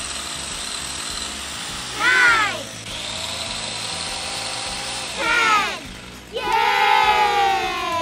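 Corded electric chainsaw cutting tree branches in short bursts: the motor spins up and winds down twice, then runs longer near the end, falling in pitch as it slows. Background music plays underneath.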